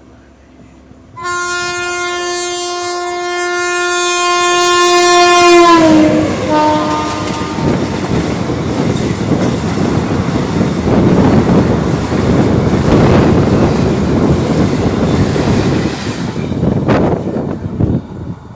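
A passing passenger train's locomotive horn sounds one long blast of about four and a half seconds. Its pitch drops as the locomotive goes by, then the coaches rush past on the adjacent track with loud rail clatter for about ten seconds, easing off near the end.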